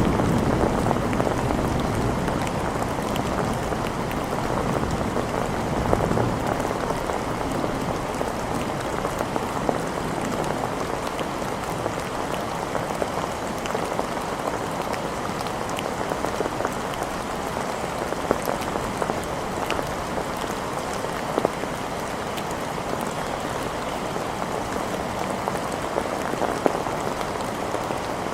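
Steady rain falling on hard surfaces, with scattered sharper drip and drop ticks throughout. A low rumble fades out in the first second or so.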